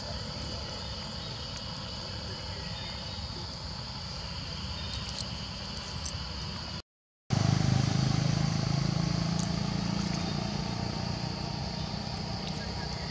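Outdoor ambience: a continuous high insect drone over a low rumble. About seven seconds in the sound drops out for a moment, then the low rumble comes back louder and slowly fades.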